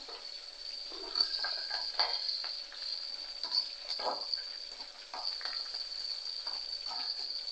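A tempering of black pepper, cumin, cashews, ginger, green chillies and curry leaves sizzling steadily in hot oil in a steel kadai. A steel spatula scrapes and knocks against the pan at irregular moments as it is stirred.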